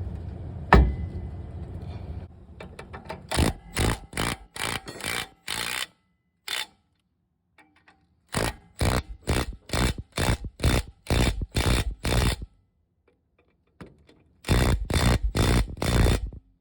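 Repeated rough scraping strokes, about two to three a second, in three runs broken by short silences, after a single sharp knock about a second in.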